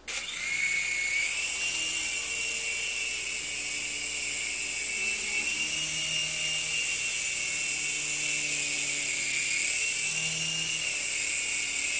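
Small radio-controlled helicopter running on 3D-printed rotor blades. It starts suddenly with a steady, high-pitched motor whine that rises a little in pitch over the first second or two, then holds with slight wavers, under a fainter hum from the spinning rotor.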